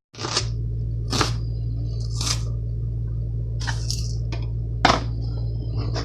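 Knife cutting through onion on a cutting board: about nine irregular, crisp cuts roughly a second apart, over a steady low hum.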